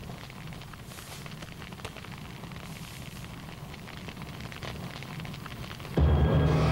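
Log fire crackling softly in a fireplace over a low steady hum. About six seconds in, loud, low music comes in abruptly.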